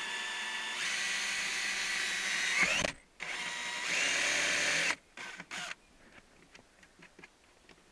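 Cordless drill boring a hole through a car's padded lower dash panel (skin over foam over hard plastic). It runs for about three seconds, rising in pitch just before it stops, runs again for about two seconds, then gives two short blips.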